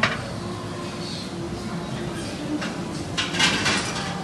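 Dishes and utensils clinking at a hotpot table: a sharp clink at the start and a short cluster of clatter a little past three seconds in, over low restaurant background noise.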